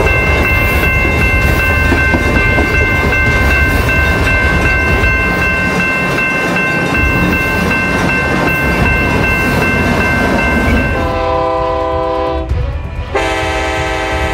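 Train running with a loud, steady rumble and a long high-pitched tone held above it, then two horn blasts near the end.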